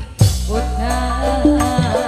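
Live tarling dangdut band music: a brief break right at the start, then a drum hit brings the band back in with a steady bass line and melody.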